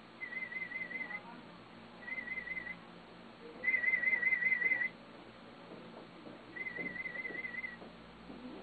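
Audiometer warble tone, a high wavering beep played four times for about a second each, the third louder and longer than the others. These are test tones in an aided hearing test, presented to check whether a cochlear implant user can detect them.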